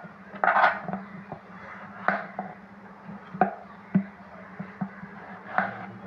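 Kitchen knife cutting through tomatoes and knocking on a red plastic cutting board: about five sharp knocks at irregular intervals, the first about half a second in being the loudest.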